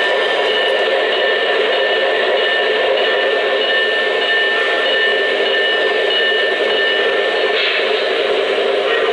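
O-gauge PRR Alco PA diesel locomotive model's onboard sound system running a steady diesel-engine sound, an even rushing noise with a thin high whine on top. The whine fades out about seven and a half seconds in.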